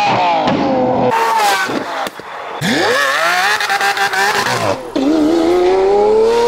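Lamborghini Aventador SVJ's naturally aspirated V12 through a Valvetronic equal-length race exhaust, in a run of short edited clips: revs rising and falling with crackles and pops, then about five seconds in a long steady climb in pitch as it accelerates hard.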